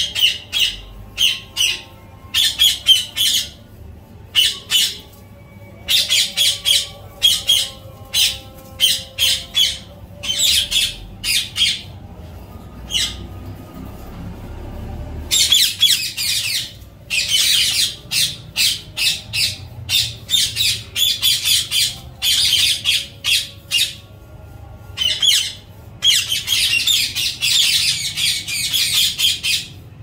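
Ringneck parakeets screeching: loud, harsh squawks in rapid runs of short calls, several runs with brief pauses between them.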